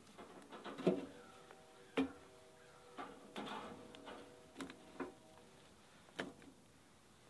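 Split chunks of smoking wood set down one after another onto lit charcoal briquettes in a metal smoker firebox: about seven uneven wooden knocks, a few of them followed by a short ringing tone.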